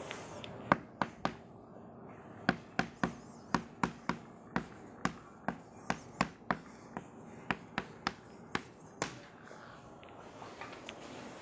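Chalk tapping and scraping on a blackboard while writing a line of text: a run of about twenty sharp taps, two to three a second, that stops about nine seconds in.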